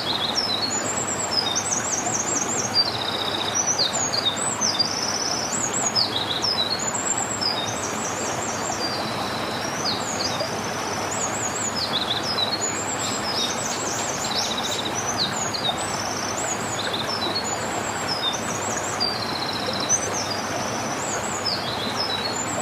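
Several songbirds singing at once: a dense run of high trills and quick chirp series, one after another without pause, over a steady rushing noise.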